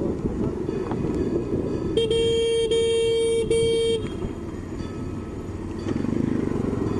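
A vehicle horn sounds about two seconds in: three honks run almost together over about two seconds. Under it runs the steady rumble of wind and traffic as a scooter rides along.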